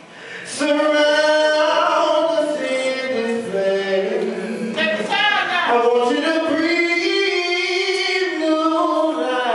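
A man singing a gospel song into a microphone, entering after a brief pause and holding long notes with sliding runs between them.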